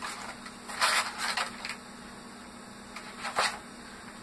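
Clear plastic lure packaging being handled and opened by hand, crinkling and rustling in a few short spells, the loudest around one second in and again near the end.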